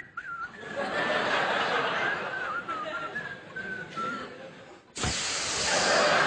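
Live audience laughing, then breaking into a sudden, louder wave of laughter about five seconds in.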